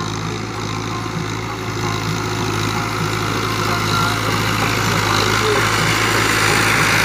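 Fiat 640 tractor's diesel engine working steadily under load as it pulls a 16-disc harrow through sand, growing louder as it comes closer.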